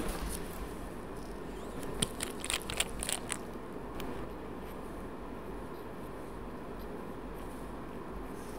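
A quick run of small sharp plastic clicks as a nail-prep bottle's screw cap with its brush is twisted open and lifted out, then one more light tick. A steady low hum runs underneath.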